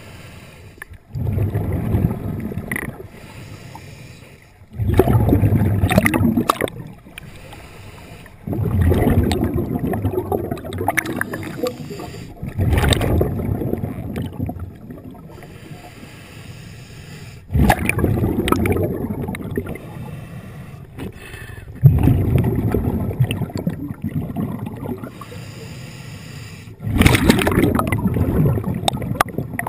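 Underwater gurgling and rumbling heard through a diving camera's housing, coming in bursts of one to three seconds about every four seconds, with quieter water noise between.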